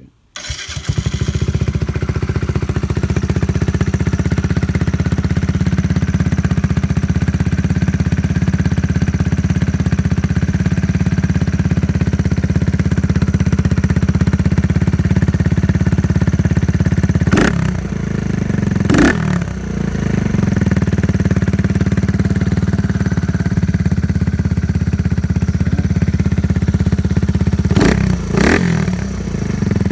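Kawasaki Z125 Pro's single-cylinder engine breathing through a Leo Vince GP Corsa aftermarket exhaust: it starts up and idles steadily, with the throttle blipped in quick pairs a little past halfway and again near the end.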